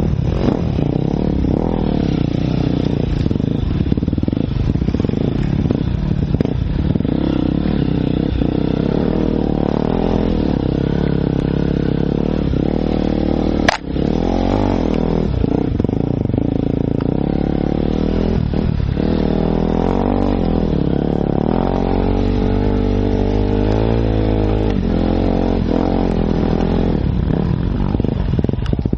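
Enduro motorcycle engine under way on a muddy trail, revving up and easing off in turn, heard from a helmet-mounted camera. A single sharp knock about fourteen seconds in.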